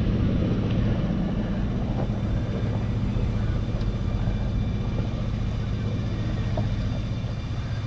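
Boat engine running at a steady low drone, with a faint wash of water over it.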